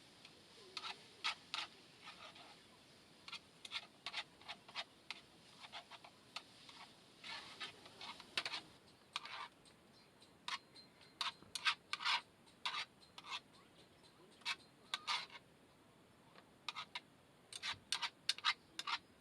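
Irregular series of short scratching and rustling sounds, some in quick clusters of two or three.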